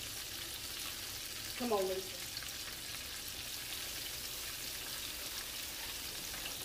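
Battered turkey pieces deep-frying in hot oil in a cast-iron skillet: a steady sizzle. A short voice sound, falling in pitch, cuts in about two seconds in.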